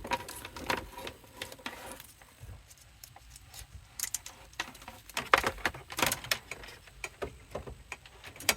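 Handling noise from plugging in a rotary tool and its power cord: scattered, irregular clicks, knocks and rattles of plastic and cable.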